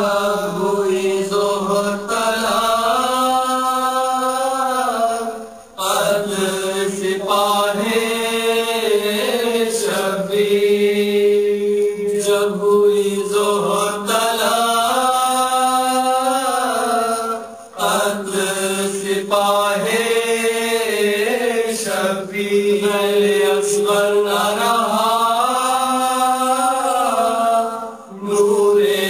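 A voice chanting a mournful Muharram lament (noha) in long, held, melismatic lines, with a brief breath pause about every twelve seconds and no drum or beat.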